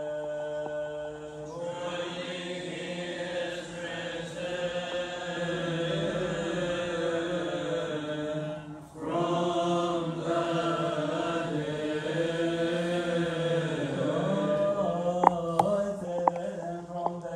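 Male voices chanting a Coptic Orthodox liturgical hymn in long, drawn-out melismatic notes, with a brief breath break about halfway through. A few sharp clicks sound near the end.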